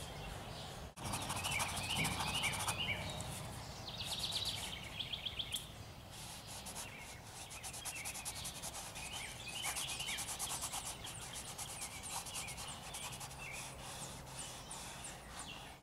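Small birds chirping in short clusters over a steady background hiss, with faint scratchy rubbing of a fingertip working wet oil paint on canvas.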